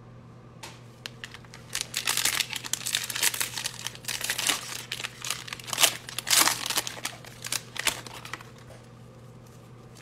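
Foil wrapper of a 2020 Playoff football card pack being torn open and crinkled as the cards are pulled out. The crackling rustle starts about two seconds in and dies away near the end.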